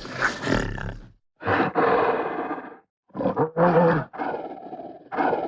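Gorilla roar and grunt sound effects: a string of rough, growling roars and short grunts, each cut off by a moment of silence, with the loudest roar about halfway through.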